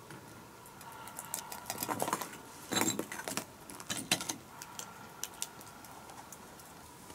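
Faint, scattered clicks and light clinks, a few louder near three and four seconds in, over a faint steady hum.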